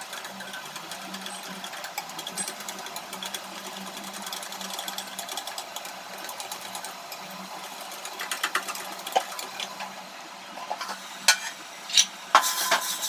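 Wire whisk beating gram flour into buttermilk in a steel bowl: a fast, steady clicking of the wires against the bowl. Near the end come a few louder metal clanks as a steel lid is lifted off a pot and set down.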